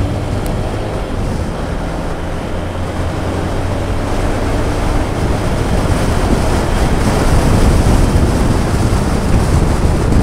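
Motorcycle engine running while the bike is ridden, under wind rushing over the microphone. The wind noise grows louder after a few seconds.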